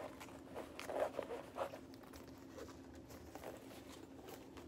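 Rustling and small clicks of a zip pouch in a clear vinyl case being handled, mostly in the first two seconds and loudest about a second in, then only a faint steady hum.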